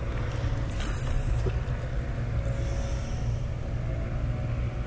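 A steady low mechanical hum, with a brief rush of noise about a second in.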